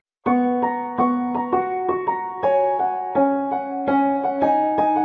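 Background music: a gentle keyboard melody of separate notes, about three a second, each ringing and fading over held lower notes. It starts a quarter of a second in, after a brief break.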